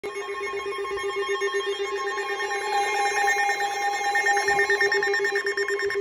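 NOAA weather radios sounding their alert alarms for a severe thunderstorm warning. Several electronic tones play at once, some pulsing in a fast trill and one held steady.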